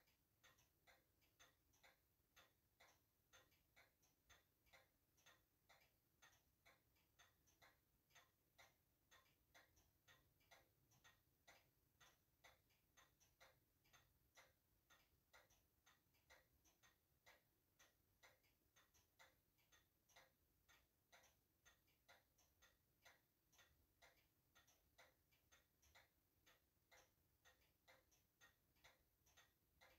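Faint, steady ticking, about two ticks a second.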